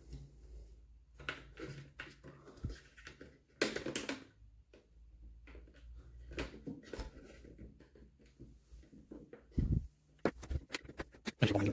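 Plastic clicks, creaks and scrapes as a car instrument cluster's rigid plastic housing is pried apart, with screwdriver bits wedged under its retaining tabs. The clicks come irregularly, with a louder one about four seconds in and a cluster near the end.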